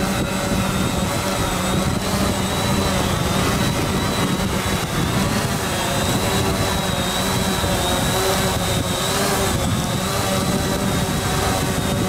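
SONGBIRD VTOL drone's four propellers running steadily as it hovers just above the ground: a constant buzz under a high whine that wavers slightly in pitch.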